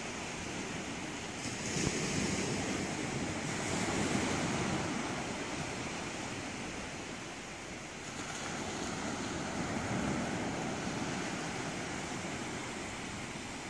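Small waves washing onto a sandy beach: a steady rushing noise that swells and eases every few seconds.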